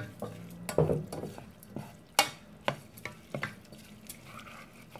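Wooden spoon stirring and tossing minced chicken larb in a stainless steel pot: a wet, rustling squelch of the dressed meat with irregular sharp knocks of the spoon against the pot, the loudest about two seconds in.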